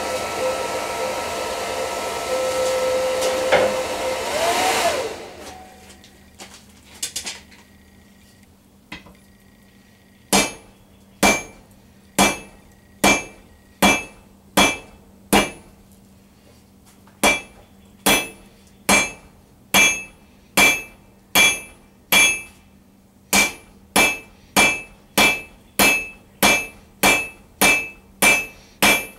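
Steady rush of a forge air blower that cuts off about five seconds in. From about ten seconds in, a peen hammer strikes a red-hot round steel bar on an anvil, fullering its middle thinner: about two dozen blows, each with a short metallic ring, in three sets with brief pauses, the last set quicker.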